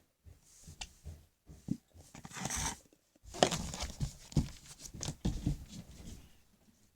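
Rustling and crinkling of plastic packaging being handled, with scattered knocks and clicks, busiest from about three and a half seconds in.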